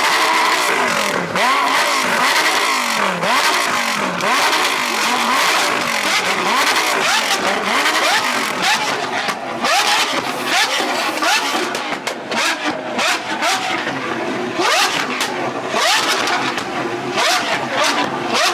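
Engines revving up and down over and over, their pitch rising and falling roughly once a second, with several overlapping.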